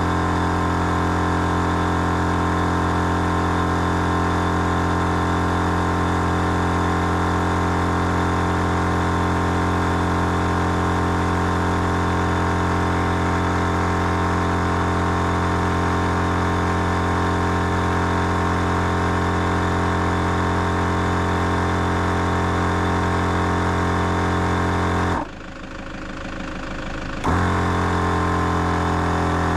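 Big Red Gear twin-head air compressor running steadily under load, pumping up four 4x4 tyres at once through a quad-flate hose kit. The sound dips sharply for about two seconds near the end, then returns.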